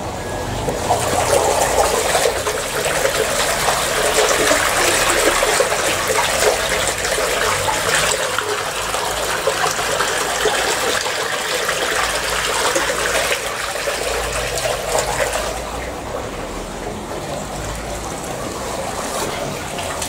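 Water gushing steadily from a pump's corrugated discharge hose into a flood test tank as it fills. The rush grows louder about a second in and eases somewhat for the last few seconds.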